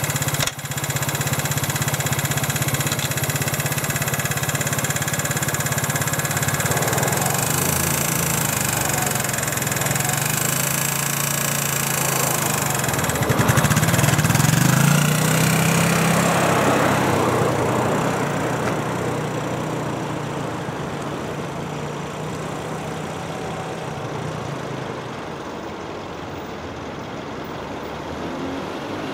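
Motorcycle engine running at idle, swelling louder once about halfway through as it is revved, then growing steadily quieter over the following several seconds.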